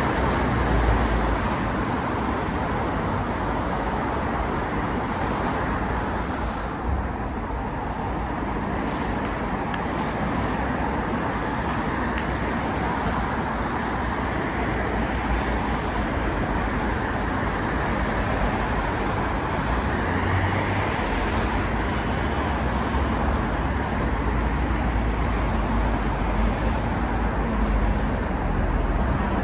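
Steady city road traffic: cars passing on a busy road, a continuous rush of tyres and engines with a low rumble underneath.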